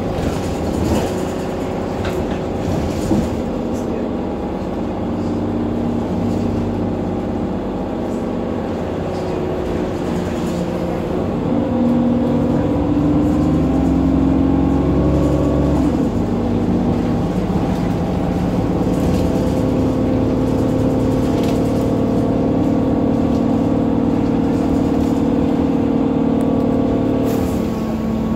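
Cummins ISB6.7 six-cylinder diesel engine and Voith D851.3 automatic gearbox of a Solaris Urbino 10 city bus, heard from inside the passenger cabin while the bus drives. The engine's pitch shifts around the middle, then holds steady for the last ten seconds.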